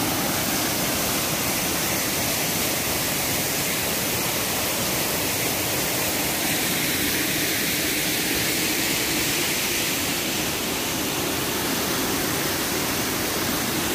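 Steady rushing of a waterfall cascade pouring into a river pool.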